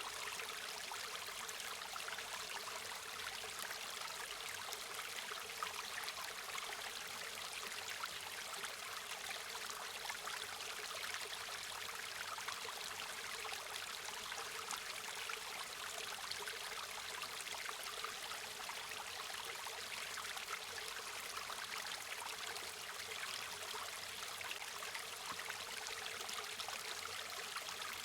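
A river or stream flowing steadily over stones, a constant hiss of rushing water with many small splashes and gurgles.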